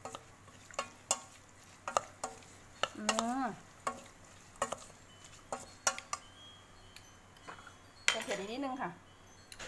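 Wooden spoon knocking and scraping against a stainless steel pot as minced pork laab is stirred and tossed, with sharp knocks coming irregularly, often about half a second apart. A short vocal sound, rising and falling in pitch, comes twice: about three seconds in and near the end.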